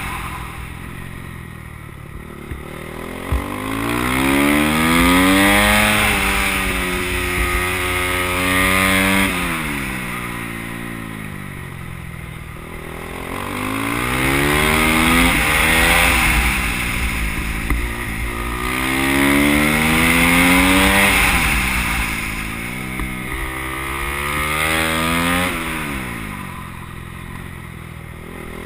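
Motorcycle engine at race pace, revving up in steps through the gears and dropping back on the throttle off for the corners, about four times, with wind rush throughout.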